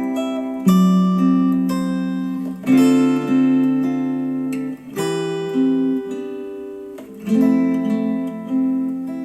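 Acoustic guitar music played back through ELAC Debut Reference DBR-62 bookshelf speakers driven by a Rotel A12 integrated amplifier: plucked chords struck about every two seconds, each left to ring and fade.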